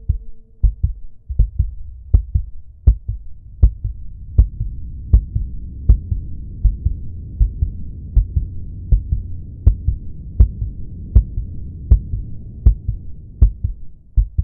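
Heartbeat sound effect: paired low thumps, about 80 beats a minute, over a low droning hum that fades out near the end.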